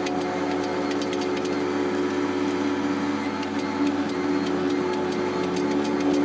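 Hydraulic forging press running steadily, its electric motor and pump giving a constant hum while a hot Damascus billet is squeezed between the dies, with frequent light ticks over it.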